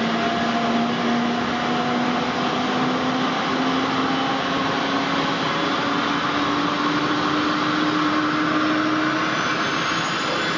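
Helicopter's turbine engine running on the ground: a steady roar of rotor and exhaust noise with a whine that slowly rises in pitch, and a high whistle climbing near the end.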